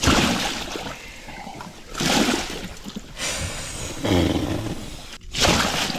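A large pike thrashing and splashing in a landing net, in several bursts with quieter gaps between them.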